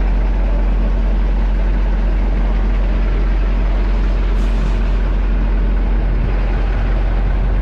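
Heavy diesel semi-truck engine idling steadily, with a brief high hiss about four seconds in.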